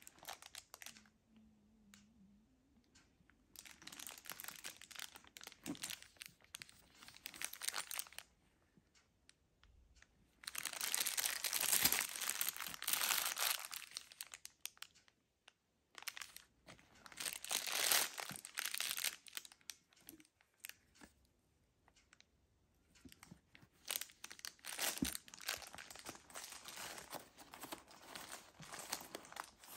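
Protective plastic wrap crinkling and tearing as it is pulled off a handbag's chain strap, and tissue paper rustling as it is handled inside the bag. It comes in several bursts of crackling with short quiet gaps between.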